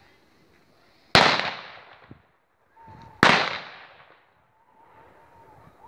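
Two loud firework bangs about two seconds apart, each trailing off in an echo over about a second.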